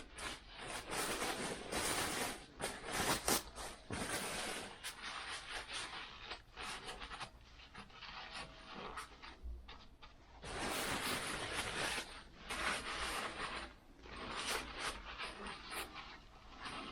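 Hands working on the motorcycle: irregular rustling and scraping in uneven spells, with a few sharp clicks.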